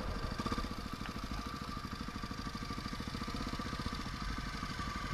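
Engine of a ridden vehicle running steadily, its firing pulses even, with no change in speed.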